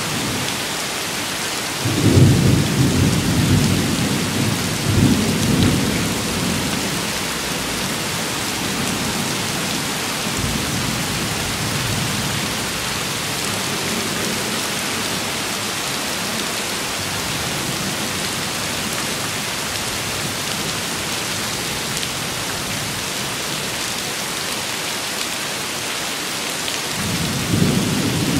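Steady rain falling, with a low rumble of thunder about two seconds in that rolls on for several seconds, and another rumble of thunder beginning near the end.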